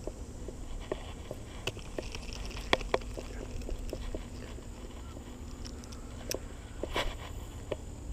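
Irregular small clicks and taps, a few sharper ones about three seconds in and near seven seconds, over a steady low rumble.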